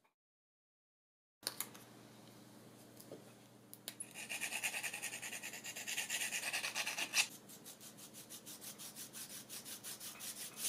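Silence for about a second and a half, then small wooden model parts being hand-sanded along their edges, with quick back-and-forth rubbing strokes about six a second. The strokes are strongest for about three seconds in the middle, then lighter towards the end.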